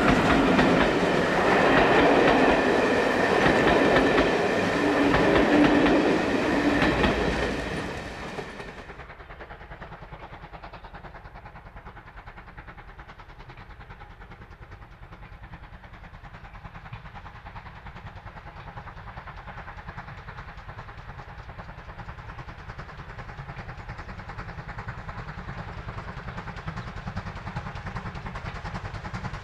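A steam-hauled train running past loudly on the rails, with wheels clattering. About eight seconds in it breaks off abruptly to a faint, steady low rumble that slowly grows louder.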